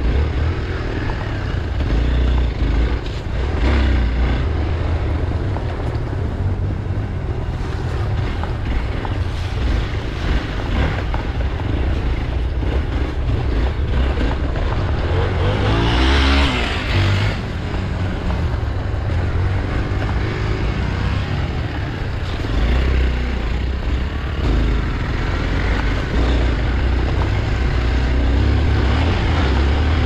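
Hero Xpulse 200's single-cylinder engine running under way as the bike rides a muddy dirt track, heard from the handlebars, with a brief surge of revs about sixteen seconds in.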